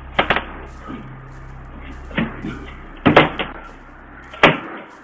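A hand tool like a hammer striking a door lock in several sharp blows at irregular intervals, a quick double blow at the start and single ones near the middle and end: someone trying to break the lock.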